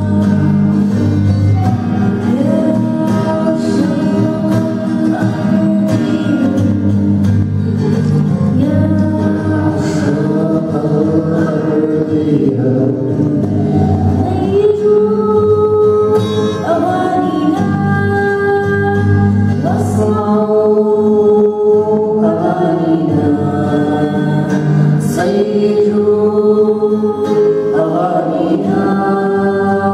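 A young girl singing a melody into a microphone, accompanied by an acoustic guitar.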